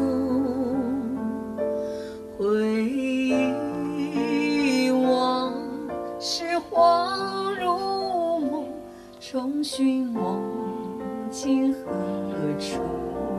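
A female voice singing a slow song with vibrato over piano accompaniment, played back over a pair of floor-standing loudspeakers driven by a Cary Audio SLP-98L tube preamp and TS Audio tube mono block power amplifiers.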